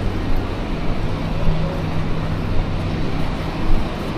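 Street traffic on a wet road: a steady low engine hum under a wide, even hiss of wet street noise.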